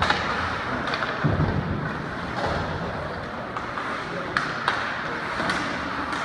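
Ice hockey play in a rink: a steady hum of rink noise with several sharp clacks of sticks and puck, two close together past the four-second mark, and a dull thud about a second and a half in.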